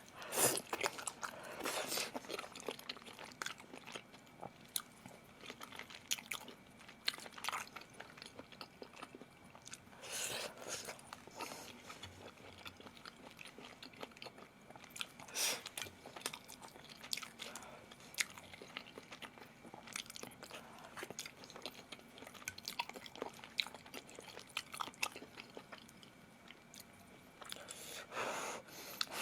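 A person eating close to the microphone: chewing with wet mouth clicks, broken by several louder crunchy bites.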